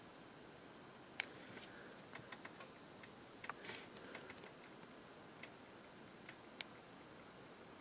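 Handling noise as a miniature on its painting holder is turned in the fingers and a fine brush is worked on it: a few small sharp clicks and light ticks with a brief rustle, faint over a steady hiss.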